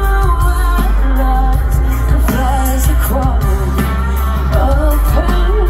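Live band with a female lead singer performing through a large outdoor PA, heard from among the crowd: loud sung vocal over drums and heavy bass.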